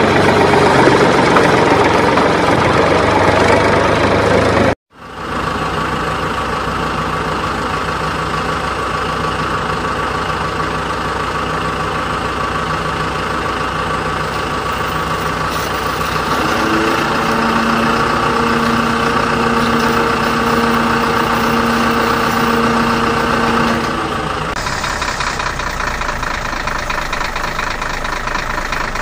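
A motor engine running steadily, cut off abruptly about five seconds in and resuming at once. From about the middle, a steady humming tone runs alongside it for several seconds.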